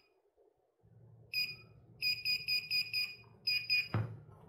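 GP-Pointer handheld pinpointer metal detector beeping rapidly, several short high beeps a second in three bursts, as it detects a coin near its tip, with a low buzz from its vibration alert underneath. A single knock near the end as the pinpointer is laid down on the plastic cutting mat.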